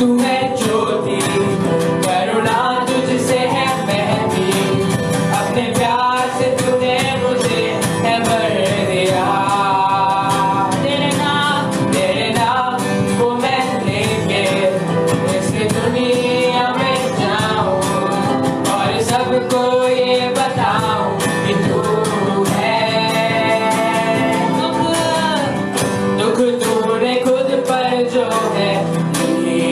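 Live worship song: a singer holding long, wavering notes over guitar and band accompaniment with a steady beat.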